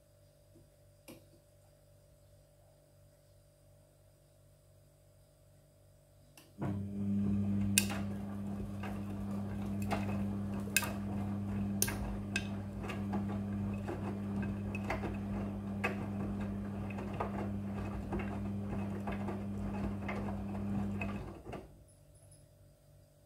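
Midea front-loading washing machine's drum tumbling the wash: a steady motor hum starts about six seconds in, with many sharp clicks and clinks of the load knocking inside the drum, and stops about fifteen seconds later, the usual turn-and-pause rhythm of a wash cycle.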